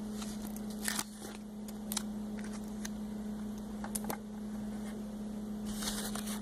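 Stickers being peeled from a paper sticker sheet and pressed onto a plastic toy fridge: a few faint scattered clicks and crackles, with a brief rustle near the end, over a steady low hum.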